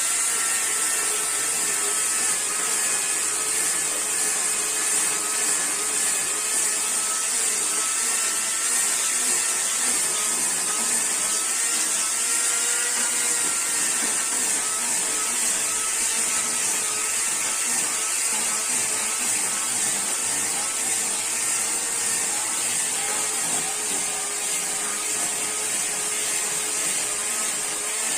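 Chainsaw running steadily at full speed, its motor pitch holding nearly constant with small dips, as if cutting through wood.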